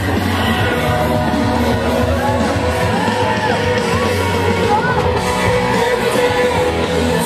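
Loud music with singing voices over a steady bass line, with some shouting from a crowd.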